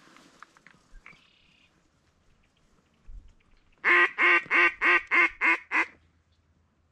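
Mallard duck call blown close by in a run of seven even quacks, about three a second, over two seconds: a hunter's greeting call to ducks working the decoys.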